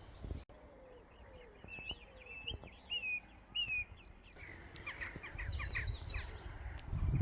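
Songbirds calling outdoors: a series of short repeated chirps, then a quick flurry of chirps. A low rumble builds near the end.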